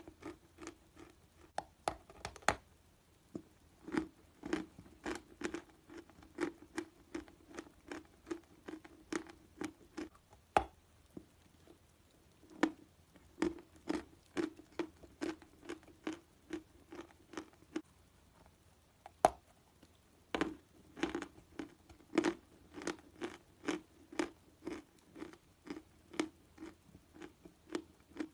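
Dry chalk being bitten and chewed: rapid crisp crunches, about two to three a second, with a few sharper bites and a couple of short pauses.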